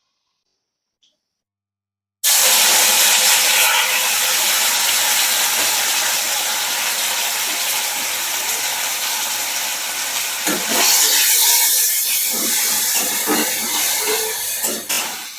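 Loud, steady cooking hiss that starts abruptly about two seconds in after silence and eases a little in the last few seconds.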